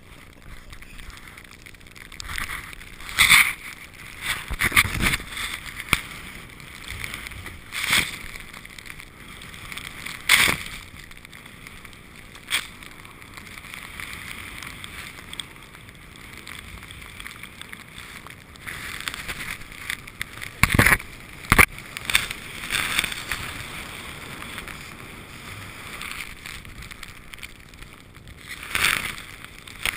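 Steady rushing hiss of skis or a snowboard sliding through deep powder snow, with wind buffeting the GoPro's microphone. Sharp knocks and thumps come every few seconds, the two loudest close together about two-thirds of the way through.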